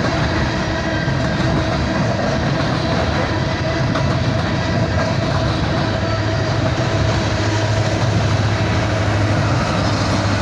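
Empty coal cars of a long freight train rolling past, with a steady rumble and clatter of steel wheels on rail. A low steady hum joins in about six seconds in.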